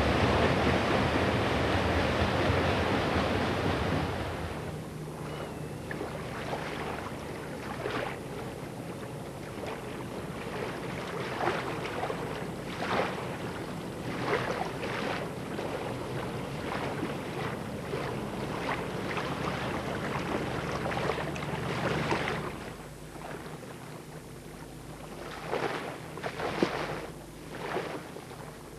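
Water rushing and splashing around a boat under way on a lake, with a faint low hum underneath. A loud rush for the first few seconds gives way to quieter, irregular splashes.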